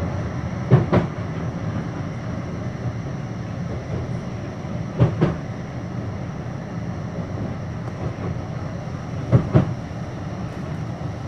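Blackpool tram running along its track, heard from inside the car: a steady rumble with a pair of quick knocks about every four seconds as the wheels cross rail joints.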